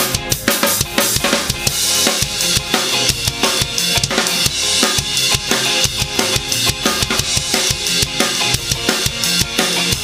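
DW Collectors Series bubinga drum kit played in a steady groove of kick, snare and rimshots, with cymbals washing brightly in the first half. It is played over a ska backing track.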